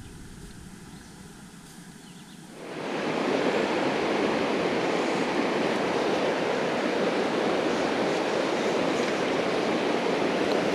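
Faint outdoor quiet, then, about two and a half seconds in, a steady rush of a shallow, stony river flowing.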